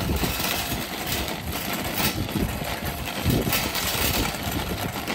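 Wire shopping cart rolling over asphalt: a steady rumble from the wheels with irregular rattling and clicking from the metal basket.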